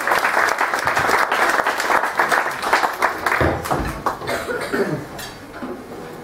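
Audience applauding, the clapping thinning out and dying away after about four seconds.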